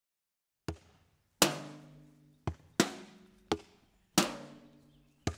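Drum hits struck one at a time, seven in all at uneven spacing; two of the loudest ring out for most of a second after the strike.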